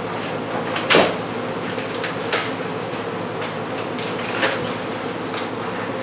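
Steady buzzing of a mass of honey bees around an exposed hive, with several sharp knocks over it, the loudest about a second in.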